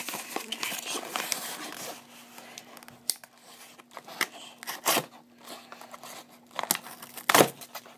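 Parcel packaging crinkling and tearing as it is cut open with a folding knife, busiest in the first couple of seconds. A few sharp clicks and knocks follow, the loudest near the end.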